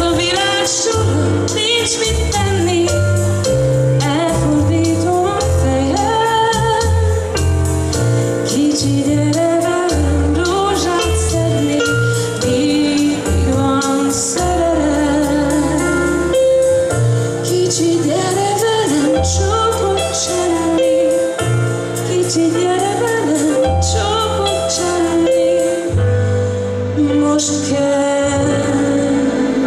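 A woman sings a pop song live through a handheld microphone over amplified accompaniment. A bass line changes note about every second under a steady cymbal beat.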